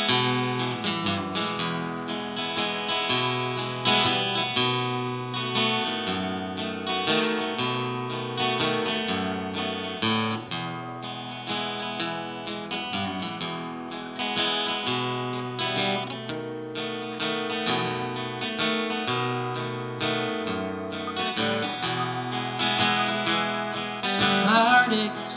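Instrumental break in a country waltz: strummed acoustic guitar in three-time with sustained bass notes underneath. The singing comes back in near the end.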